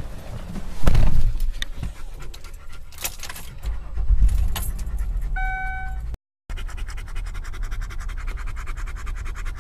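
Handling noise in a car's cabin: a heavy thump about a second in, keys jangling, and a short chime a little past halfway. After a brief break, a dog pants rapidly and evenly.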